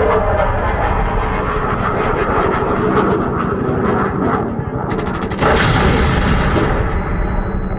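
Weapons sound effect: a continuous low rumble of heavy fire, with a short, very rapid burst of machine-gun shots about five seconds in.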